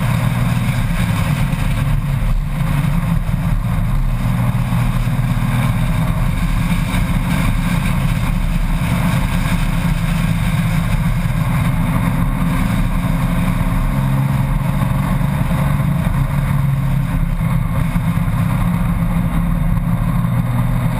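Honda Gold Wing motorcycle engine running steadily at road speed, under a constant rush of wind over the bike-mounted camera.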